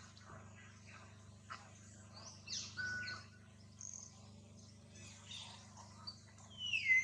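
Scattered high chirps and short whistled calls over a faint steady low hum, with a louder call sliding down in pitch near the end.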